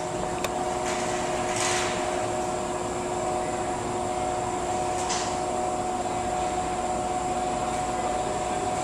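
Steady machine drone with several held steady tones, broken by two short hisses about two seconds and five seconds in.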